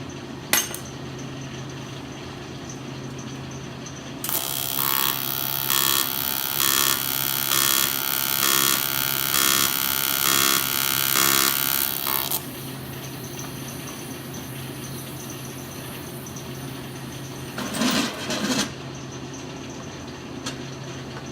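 A power tool runs for about eight seconds in the middle, loud and pulsing about one and a half times a second, then stops. A short burst of the same kind of noise comes near the end. A steady shop hum runs underneath, with a sharp click about half a second in.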